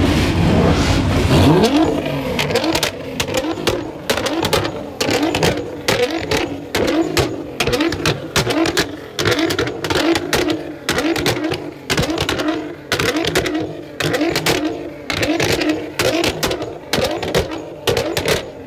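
A car engine revving hard at the start, rising in pitch, then easing off after about two seconds. After that comes a regular run of short, sharp pulses about once a second, mixed with voices.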